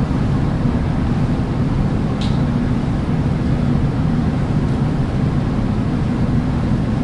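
Steady low rumble with a faint hum running under it, and one light click about two seconds in.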